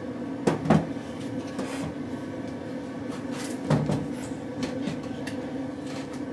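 Felt-covered wooden roof panels being set onto a small wooden pet house: a few wooden knocks and clatters, two close together about half a second in and another near four seconds, with lighter taps between, over a steady low hum.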